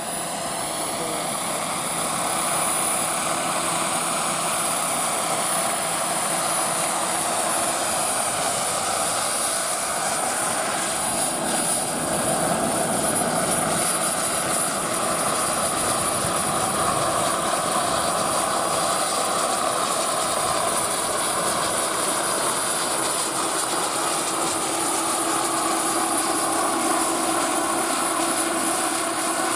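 Radio-controlled scale model helicopter flying, a steady whine with a thin high tone, its pitch drifting slowly up and down as it moves. It grows louder over the first couple of seconds.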